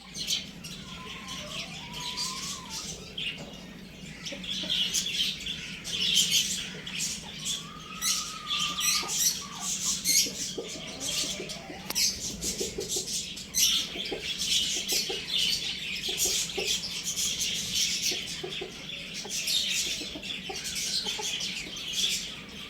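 Rooster crowing, with two drawn-out crows about a second and about eight seconds in, among chickens clucking and dense high chirping throughout.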